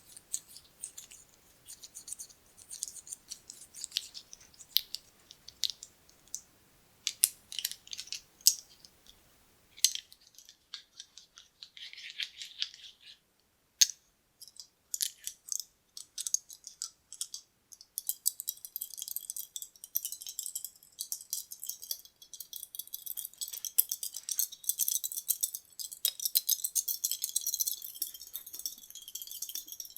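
Buttons clicking and clattering against each other in scattered clicks. From about halfway through they turn into a dense, continuous rattle of many buttons.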